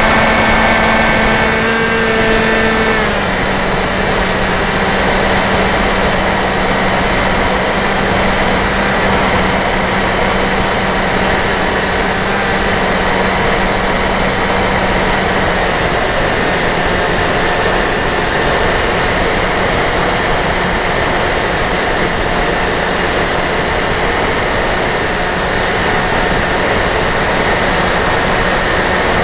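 Electric motor and propeller of a Dynam Hawk Sky RC plane running steadily in flight, heard from the onboard camera over a heavy rush of air. The motor's pitch steps down slightly about three seconds in and again about halfway through.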